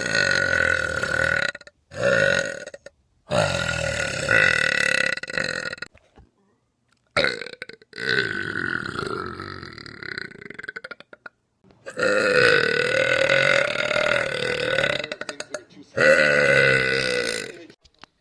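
A young woman belching, six long drawn-out burps one after another with short pauses between them. The longest lasts about four seconds, near the middle.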